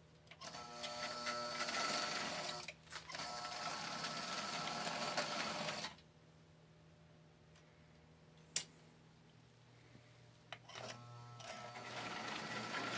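Electric motor of a vintage toy train locomotive whirring and buzzing as it runs under power. It dips briefly near 3 s and stops about 6 s in. A single sharp click comes about 8.5 s in, and the motor starts whirring again from about 11 s.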